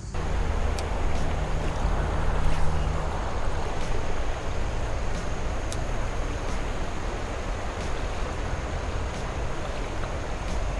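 Steady outdoor rushing noise with a heavy low rumble, starting suddenly, with a few faint ticks.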